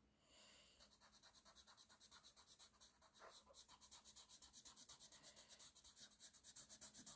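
Paper blending stump rubbing pastel pencil into drawing paper in quick back-and-forth strokes, about five a second, faint. The rubbing starts about a second in.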